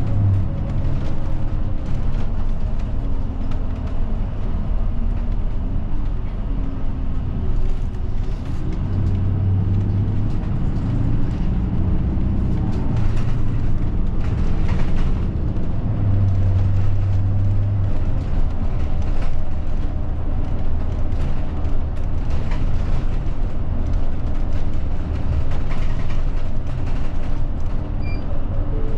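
A diesel bus engine running under way, heard from inside the passenger cabin with road and tyre noise. The engine note shifts up and down with speed and gear changes, and is heaviest around a third and halfway through.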